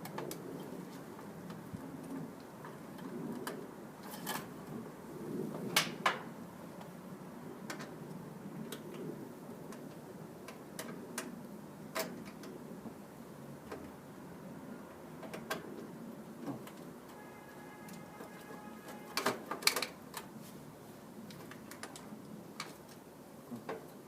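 Scattered sharp clicks and knocks of tools and small parts being handled while a hard start capacitor kit is mounted in a central air conditioner. A few clusters are louder, about six seconds in and again near twenty seconds, over a low steady rumble.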